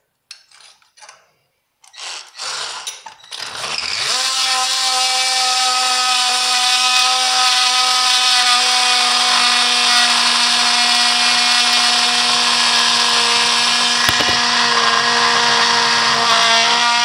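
A few knocks and handling clatter, then about three and a half seconds in a Ryobi cordless power tool with a Bosch tile-cutting blade starts and cuts into ceramic countertop tile: a loud, steady high whine over a grinding hiss that stops abruptly at the very end. The tile is being cut slowly and kept wet with water.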